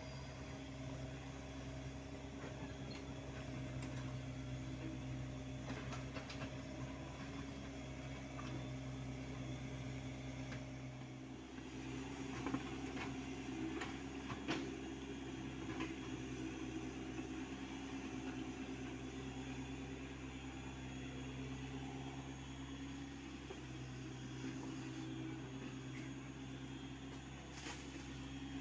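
Hyundai R80-7 mini excavator's diesel engine running steadily as it digs, with a few sharp knocks of the bucket and stones, the loudest about halfway through.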